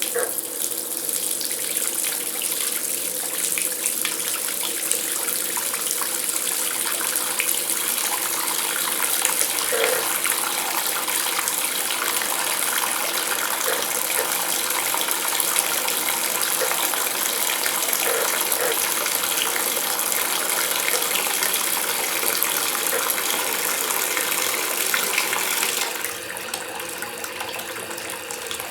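Water running from a bathtub tap and filling the tub, a steady rushing gush. About 26 seconds in the flow becomes quieter and thinner.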